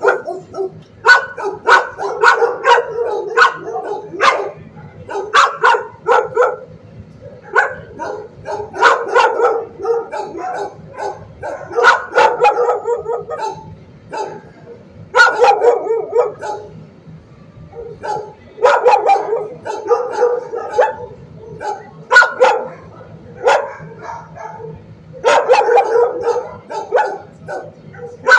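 Dogs barking in a shelter kennel block, many sharp barks overlapping in long runs, with short lulls between the runs.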